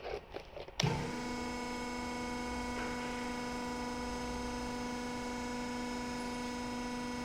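A few short knocks and clicks, then about a second in a steady electrical hum starts abruptly and holds level, one pitched tone with several overtones.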